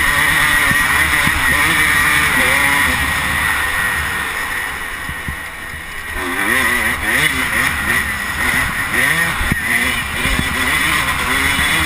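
Motocross dirt bike engine revving up and down with throttle and gear changes while ridden along a dirt track, under a steady rush of wind on the microphone. The engine eases off for a moment about four to six seconds in, then picks up again.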